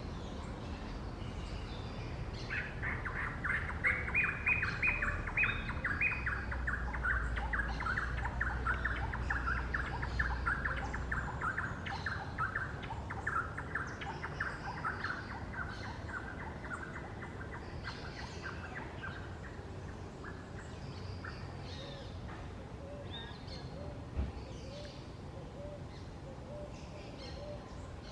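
A forest bird known locally as the chupa huevo singing one long, fast series of repeated notes that begins about two seconds in, drops slightly in pitch and fades out over roughly fifteen seconds. Other birds give scattered higher chirps throughout.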